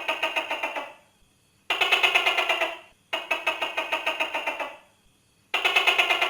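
Tokay gecko calling in rapid rattling pulse trains, about eight pulses a second, in four bursts of a second or so each with short pauses between.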